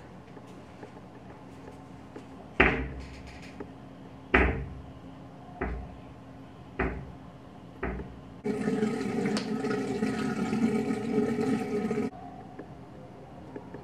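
Five sharp knocks spaced about a second apart, then water running steadily for about three and a half seconds before it stops abruptly, in a small bathroom.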